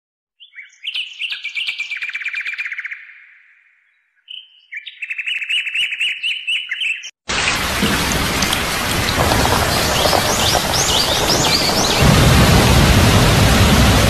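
Birds calling in two spells of rapid trills. About seven seconds in the sound cuts sharply to steady heavy rain, with a few bird chirps over it, and the rain grows louder near the end.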